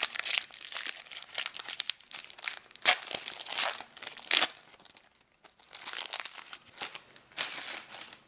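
A trading-card booster pack wrapper being torn open and crinkled by hand, a dense run of irregular crackles with a short lull about halfway through.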